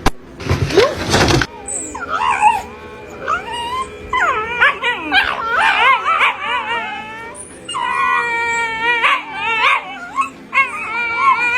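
A dog howling and whining in a run of high, wavering cries, after a loud burst of noise in the first second and a half.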